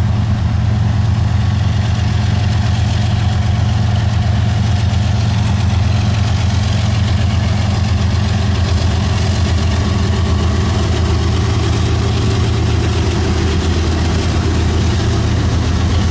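Diesel freight locomotive engine running steadily at close range: a loud, even low drone.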